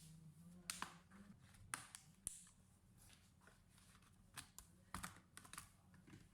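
Irregular light clicks and taps from hands working on a laptop, about a dozen sharp ticks spread unevenly over a few seconds.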